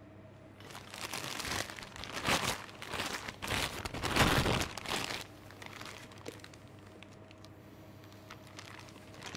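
Clear plastic piping bag crinkling and rustling as it is opened and handled in the hands, in irregular bursts that are loudest about four seconds in and die down after about five seconds.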